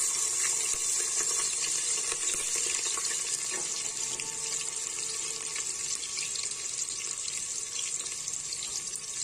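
Sliced onions sizzling as they fry in hot oil in an aluminium pressure cooker: a steady, bright hiss that fades a little as it goes on.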